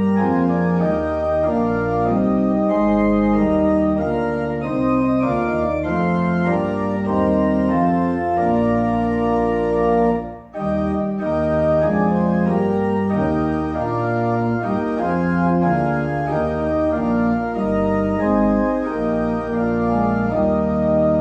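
Organ music: sustained chords held and changing. There is a brief break about halfway through before the playing resumes.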